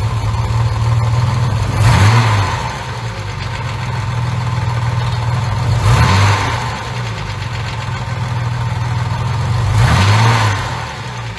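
Car engine idling with three short blips of the throttle, about four seconds apart.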